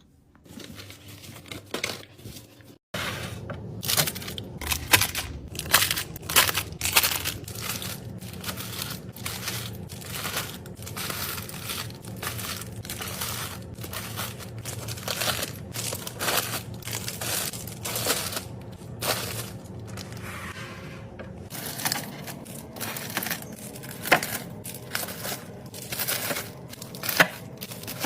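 Plastic packaging crinkling and rustling as it is handled in irregular bursts, over a steady low hum. The sound cuts off briefly about three seconds in and resumes.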